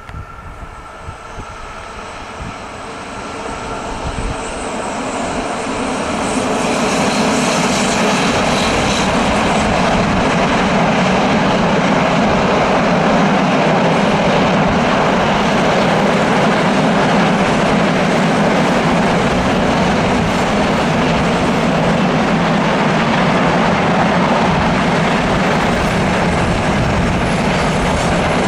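A freight train passes behind a pair of Czech 'laminátka' electric locomotives: the sound builds over the first several seconds as the locomotives come by. It then holds as the loud, steady rumble of a long rake of loaded open wagons rolling over the rails.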